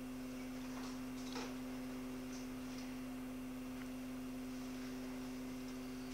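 A steady low electronic hum made of a few constant tones, with faint ticks about one and one and a half seconds in.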